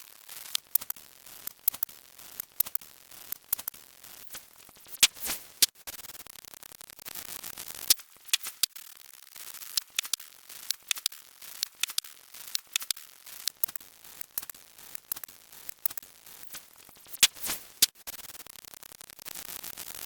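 Irregular sharp clicks and crackles, several a second and uneven in strength, over a faint steady hiss.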